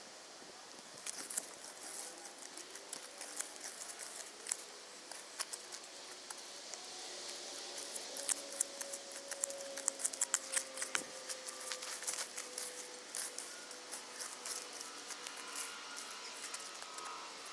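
An irregular run of small sharp clicks and snips, coming thickest around the middle, over a faint steady tone.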